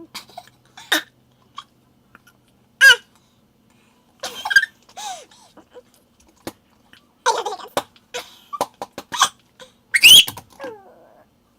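Sped-up burps and bursts of laughter, high-pitched: a string of short bursts, the loudest about three seconds in and again near the end.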